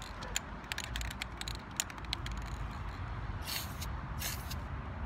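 Aerosol spray-paint can: the mixing ball clicks and rattles as the can is handled, then two short hisses of spray a little past halfway.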